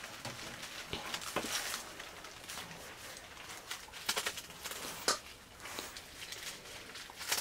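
Knife slicing through a hand-held bunch of mustard greens, with irregular crisp snaps as the blade cuts the stems and soft leaf rustling between cuts.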